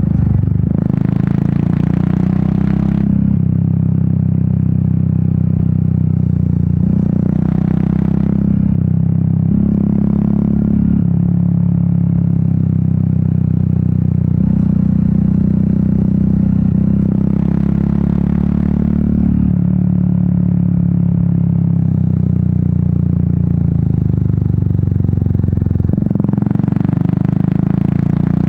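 Royal Enfield Meteor 350's single-cylinder engine and exhaust running steadily under way, its pitch stepping up and down several times as the throttle changes. Four times the rider is hit by a rush of hissing noise that lasts a couple of seconds, the first about a second in and the last near the end.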